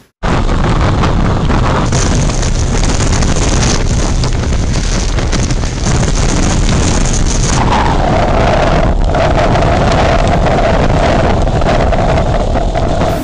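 Loud hurricane wind buffeting the microphone with a deep, steady roar, while storm surge washes across a wooden deck. From about eight seconds in, a steady high whistling tone sounds over the roar.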